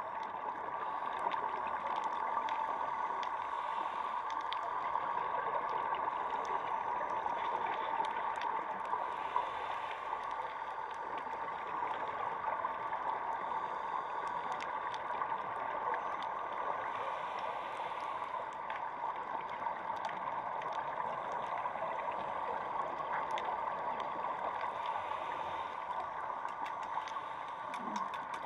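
Steady underwater ambient noise picked up by a submerged camera, a constant hiss-like wash with many faint scattered clicks and crackles.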